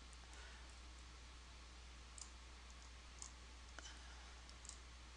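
Near silence with a few faint, sharp computer mouse clicks spread across the stretch, over a steady low hum.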